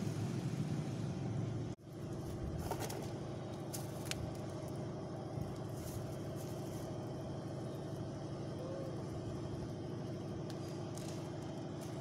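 A steady low mechanical hum runs throughout, with a brief dropout about two seconds in and a few faint light clicks.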